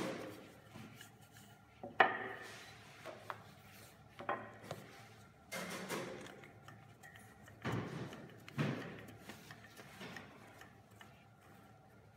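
Wooden rolling pin rolling out puff pastry dough on a granite worktop: repeated rolling and rubbing strokes, with a sharp wooden knock about two seconds in and a few lighter knocks.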